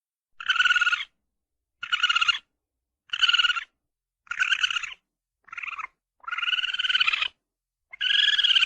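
Cartoon sabre-toothed squirrel vocal sound effects: a series of seven high, squeaky cries with dead silence between them. The last two are drawn out longer.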